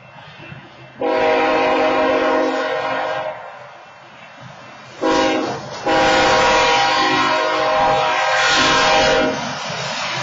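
Diesel locomotive's air horn sounding at a grade crossing: a long blast, a short blast, then another long blast. The train's rumble rises as the locomotive reaches the crossing near the end.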